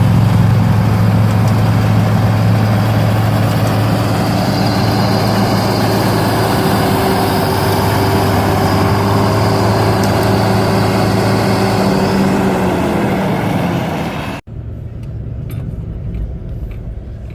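A heavy vehicle engine running steadily at constant speed, with a faint high whine over it, its pitch sagging slightly about thirteen seconds in. About fourteen seconds in it cuts off abruptly to a much quieter stretch with scattered light clicks.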